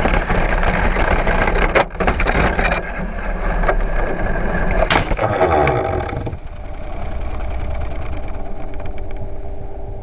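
Traxxas Rustler VXL's brushless electric motor and drivetrain whining as the truck drives over sand. About five seconds in a sharp knock as it tips over, the motor pitch falls away, then a quieter, steadier whine continues with the truck on its side.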